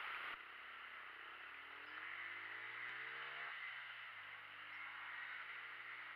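A faint distant engine that rises in pitch for a couple of seconds, breaks off, then runs at a steady pitch, over a steady hiss.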